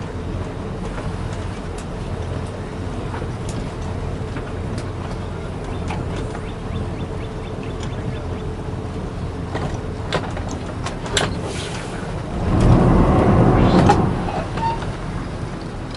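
Boat engine running at low speed with a steady low rumble while docking, scattered small clicks over it, and a louder surge for about a second and a half a little past two-thirds of the way through.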